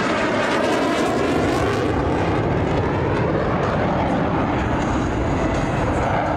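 F/A-18 Super Hornet jet, its twin General Electric F414 turbofans giving a loud, steady roar as it flies past. The tone sweeps in the first couple of seconds.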